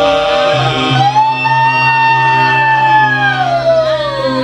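Live guitar accompaniment playing a short intro of long held notes over a steady low note, one note sliding slowly down in pitch near the end.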